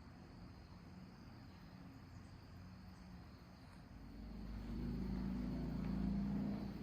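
A passing vehicle's low rumble swells from about four seconds in and drops off near the end, over faint, steady insect chirring.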